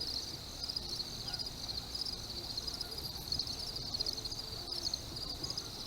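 Crickets chirping in a steady, high-pitched, finely pulsing chorus.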